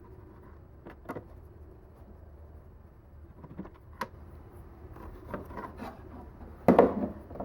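Hand work on a lawnmower engine's cover as its two screws come out and the cover is loosened: scattered light clicks and scrapes, with a louder clatter near the end.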